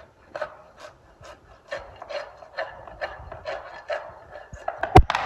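Farrier's hoof rasp filing a horse's hoof wall in steady strokes, about two a second, taking off the excess hoof over a freshly nailed shoe. A single sharp knock near the end.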